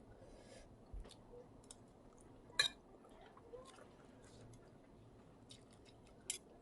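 Close-up mouth sounds of someone eating a spicy instant-noodle salad with shrimp and squid: quiet chewing with scattered small wet clicks and smacks, a sharper click about two and a half seconds in and another near the end.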